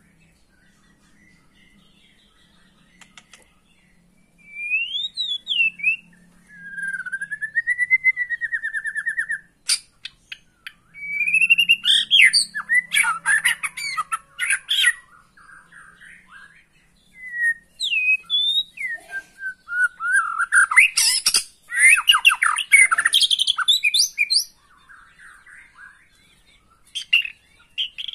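White-rumped shama (murai batu) singing, starting about four seconds in: phrases of rising and falling whistles, rapid trills and harsh chattering notes, with short pauses between phrases.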